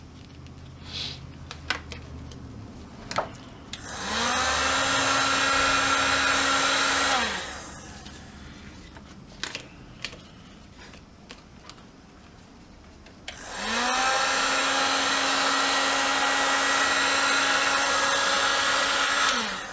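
Electric hot-air blower switched on twice: once for about three seconds, then again for about six seconds. Each time its motor spins up to a steady whine under a loud rush of air, then winds down. It is heating a warped plastic radio dial glass to soften it for straightening. Light handling clicks come between the two runs.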